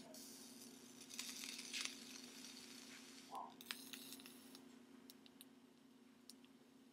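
Faint sizzling and crackling of e-liquid boiling off the glowing wire coils of a BLISS Genesis rebuildable atomizer as it is fired, with a few sharp pops in the second half. The juice is evaporating as fast as the coils glow, a sign that the wick is feeding.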